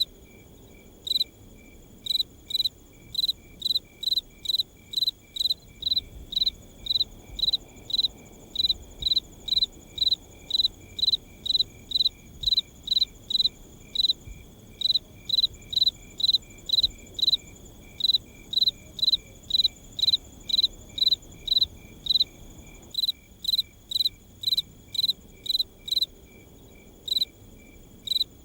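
Night ambience of a cricket chirping in a steady, even rhythm, about two to three short chirps a second, pausing briefly about a second in and near the end, over a fainter continuous insect trill.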